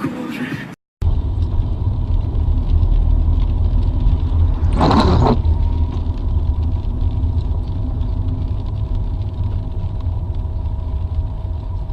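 Steady low rumble of a car driving, heard from inside the cabin, starting after a brief cut to silence about a second in. A short burst of hiss about halfway through.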